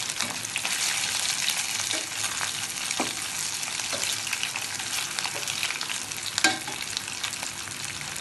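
Chili-masala-coated fish pieces frying in hot oil in a pan: a steady crackling sizzle with scattered pops, and one sharper click about six and a half seconds in.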